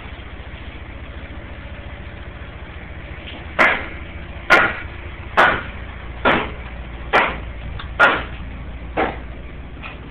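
An engine idling steadily, with seven sharp blows about once a second starting a third of the way in, as of a hammer striking during interior demolition.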